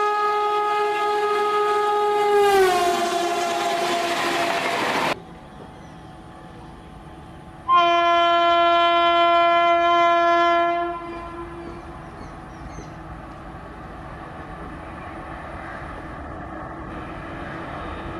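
Electric locomotive horns of Indian express trains. The first horn is held as a WAP-7 comes through at speed, drops in pitch about two and a half seconds in as it passes, and cuts off abruptly about five seconds in. A lower horn from an approaching WAP-5 then sounds for about three seconds, followed by the growing rumble of the train coming in.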